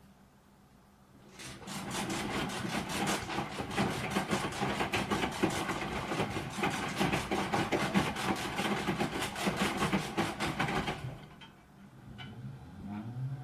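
Broken washing machine running with a rapid, rhythmic scraping and rubbing noise as the drum turns. It starts about a second in and stops near the end, followed by a brief rising motor whine.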